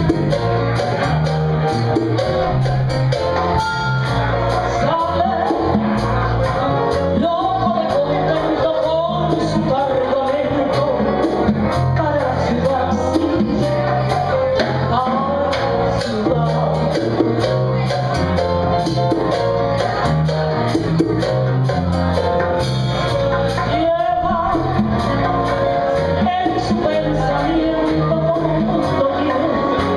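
A woman singing into a microphone with a live band of bass guitar, drums, conga and piano, playing a steady Latin beat.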